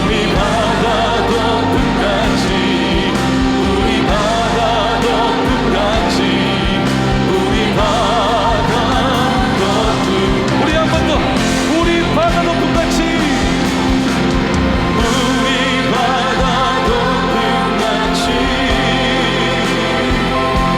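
Live worship band with singers: voices singing with vibrato over keyboards, bass and drums.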